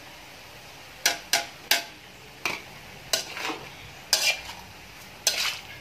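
Metal fork and spoon scraping and clattering against a metal wok while squid is stir-fried, about eight sharp scrapes at an uneven pace starting about a second in, over a faint steady sizzle.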